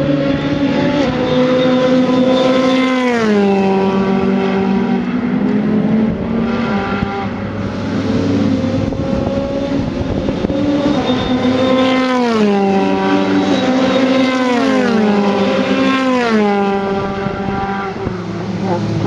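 Formula 3 race car's four-cylinder engine at high revs. Its note steps down in pitch with each gear change: once about three seconds in, and three more times in quick succession from about twelve seconds.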